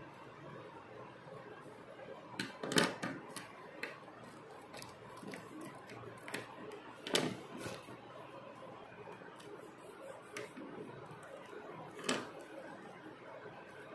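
Handling noises of paper craft: scattered small clicks and paper rustles as glitter washi tape is smoothed along a notebook page, with three sharper crackling clicks, about three, seven and twelve seconds in.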